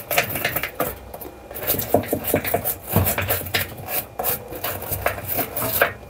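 A small wire-bristle brush scrubbing grime off the plastic floor of a top-loading washing machine tub: quick, irregular scraping strokes, several a second.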